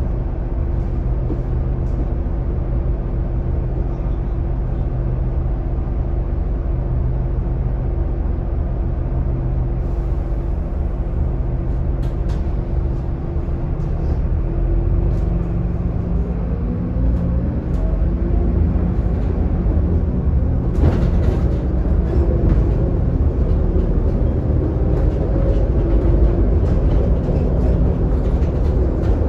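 Scania K280UD double-decker bus's five-cylinder diesel engine, heard from inside the lower deck: idling steadily while the bus waits in traffic, then revving up as the bus pulls away about halfway through, its pitch rising in several steps through the gears.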